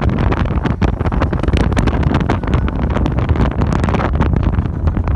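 Wind rushing and buffeting the microphone aboard a speeding rigid inflatable boat, over a steady low rumble from the boat.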